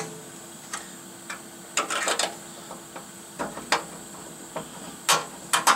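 Sheet-metal end cover of a 9x20 benchtop lathe being handled and fitted back over the belt and pulleys: a series of light knocks and rattles, with a cluster about two seconds in and several more near the end.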